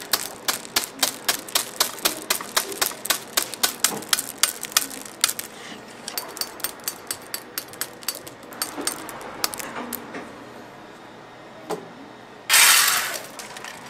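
Cleaver chopping ropes of hard rock candy against a steel anvil into small pieces: rapid sharp chops about five or six a second, thinning out after about five seconds and stopping. A loud burst of noise comes near the end.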